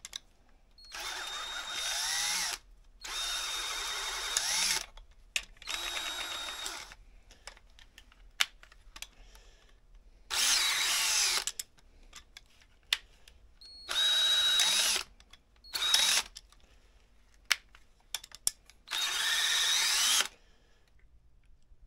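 Cordless drill forcing a 5/8-inch bit through the rubber bushing of a snowmobile shock absorber. It runs in about seven stop-start bursts of one to two seconds, its pitch wavering as the bit works through the rubber, with short clicks and handling noises between bursts.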